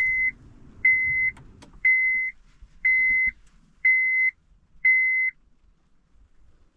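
Honda Civic's dashboard warning beeper sounding six even, single-pitched beeps about once a second, set off by switching the ignition to run.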